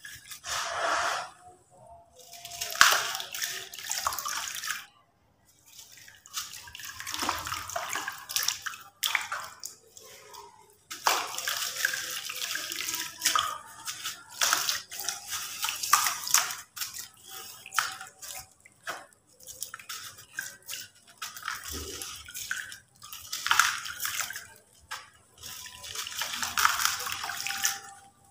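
Gritty sand-cement crumbled between the fingers, the grains pouring and pattering down into a plastic bucket. It comes as bursts of gritty hissing, a few seconds each, with short pauses between.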